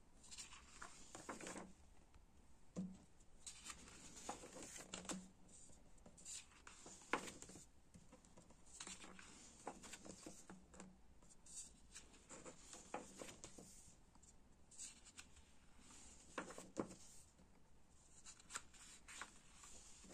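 Faint, irregular rustles and soft taps of paper as the pages of a paperback book are turned and smoothed by hand.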